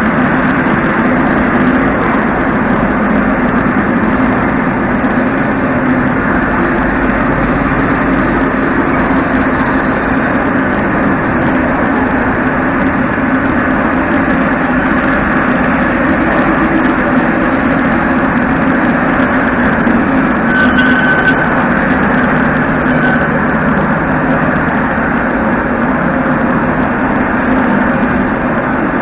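Moscow metro 81-717.5 'Nomernoy' train at a station platform: a loud, steady hum and rumble from the train. Two short high beeps sound about two-thirds of the way in.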